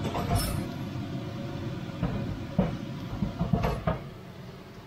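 Steaks sizzling steadily in a ridged iron grill pan, with a few knocks and clatters about half a second in and again from about two and a half to four seconds in. The sizzle grows fainter near the end.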